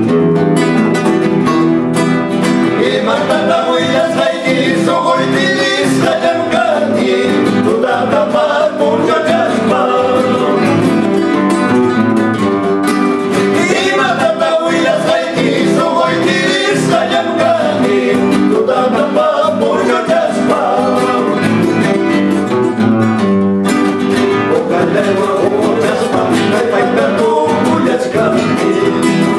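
Four acoustic guitars strummed and picked together, with men singing a Quechua song over them.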